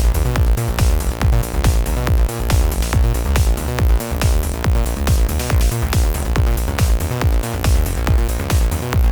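Electronic dance music with a heavy, steady bass beat.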